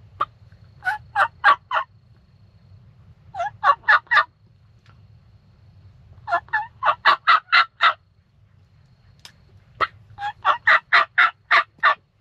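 Hen turkey yelps made on a mouth diaphragm call: four series of short, evenly spaced yelps, the last two longer runs of about nine notes. It is calling to hens to draw them in.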